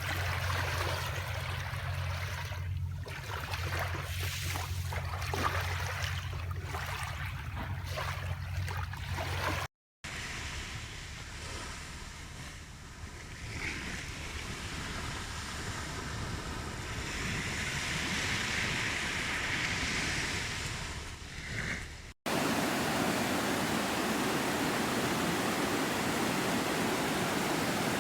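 Sea waves and surf in three separate recordings joined by abrupt cuts about ten and twenty-two seconds in. The first has a steady low hum under the irregular surges of water; the last is an even, unbroken rush.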